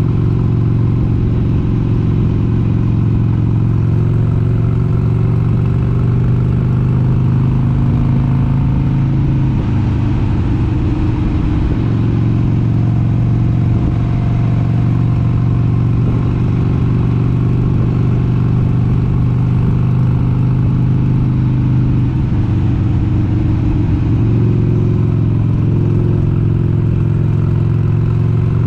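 1996 Harley-Davidson XLH883 Sportster's air-cooled V-twin engine running at road speed, a steady exhaust note whose pitch shifts a couple of times.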